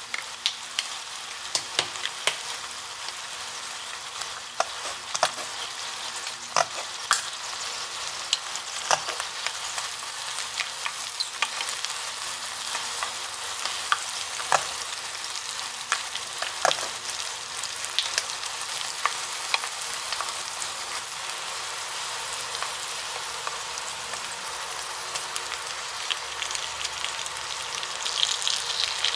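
Corn kernels and mayonnaise sizzling in a square pan on an induction cooker, a steady hiss broken by frequent sharp clicks of a spoon stirring against the pan. The sizzle grows louder near the end.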